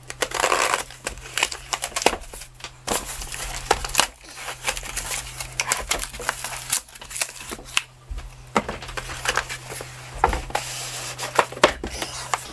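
Knife slicing packing tape on a cardboard shipping box, then cardboard flaps being pulled open and handled, with many sharp scrapes, rips and knocks of cardboard and packing material. A faint steady low hum sits underneath.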